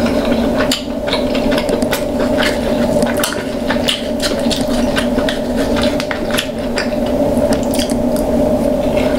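Close-miked eating of king crab claws in butter sauce: wet squishing and chewing with many sharp clicks and taps from the shells and utensils as the meat is worked out. A steady hum runs underneath.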